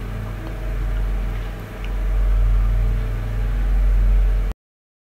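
A steady low machine hum, with no voice over it, that cuts off abruptly about four and a half seconds in.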